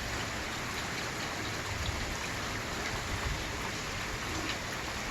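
Steady rain falling in a thunderstorm: an even, unbroken hiss.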